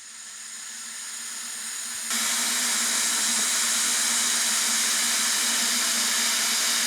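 Electric kettle heating wine, a steady hiss from the liquid warming on the element that grows louder, jumps up about two seconds in, then holds level, with a faint low hum underneath. The wine is heating up but is not yet boiling.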